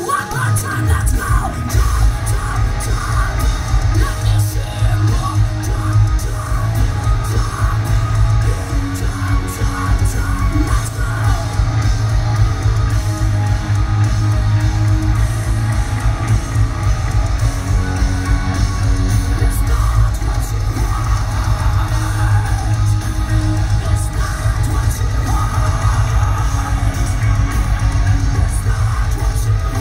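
Live heavy metal band playing loudly, with distorted guitars and a heavy low end under sung and screamed vocals.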